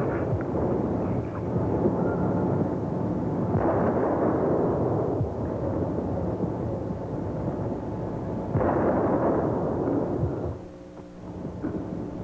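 Distant cannon of a 21-gun salute firing, two heavy booms about five seconds apart, each rolling on in a long echoing rumble.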